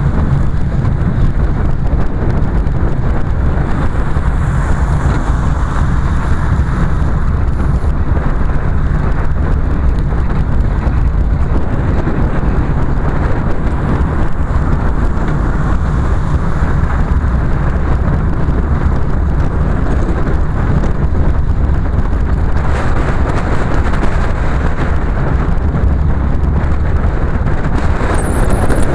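Car driving at road speed heard from a microphone mounted outside on the bonnet: a loud, steady low rumble of wind buffeting the microphone mixed with engine and tyre noise.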